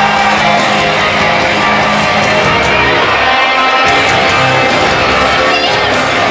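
Wrestler's entrance music playing loudly and steadily, with guitar in it.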